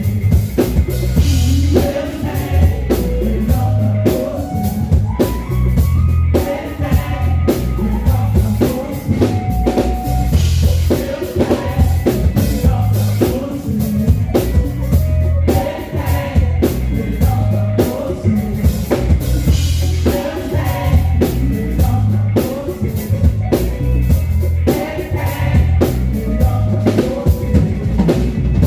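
Worship music with a drum kit, bass and singing, playing steadily with a regular beat.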